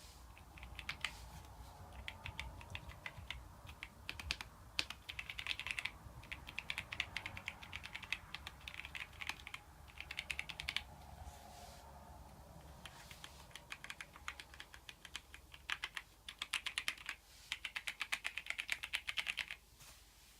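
Typing on a Keychron V6 Max full-size mechanical keyboard with Gateron Brown tactile switches: quick runs of key clicks, pausing for about two seconds midway, then stopping shortly before the end.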